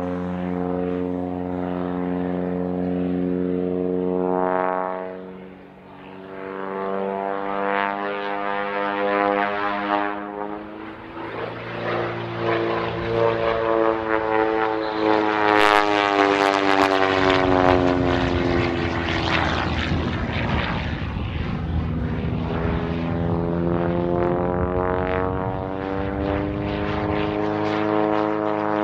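Pitts Special aerobatic biplane's piston engine and propeller, its pitch sweeping up and down as it throttles through manoeuvres. The sound fades briefly about five seconds in, then grows louder and rasping from about the middle on.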